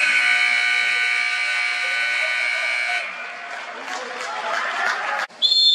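Indoor sports facility's electric game buzzer sounding one steady, flat buzz for about three seconds, marking the end of a half. Voices follow, and near the end a referee's whistle blows.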